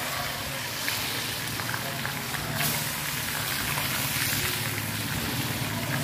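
Hot cooking oil sizzling in a wok over a wood fire, a steady dense hiss with a few faint crackles. A low steady hum runs underneath.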